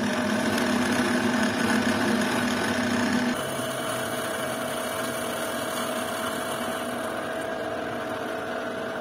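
An end mill cutting welded aluminium on an engine crankcase, a steady machining hum as the weld build-up is resurfaced flat. About three seconds in the sound drops a little and changes pitch.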